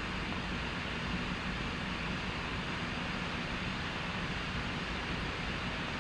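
Steady hiss with a low hum under it: the background noise of an old film soundtrack in a pause between lines of dialogue.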